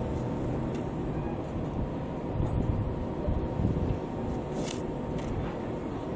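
Steady low harbour rumble with a faint steady hum, like engines or machinery running nearby, with a few faint short ticks over it.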